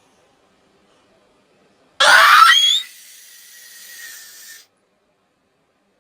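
A cartoon character's sneeze: one loud, sharp burst about two seconds in with a rising squeal in it, followed by a faint fading tail that cuts off.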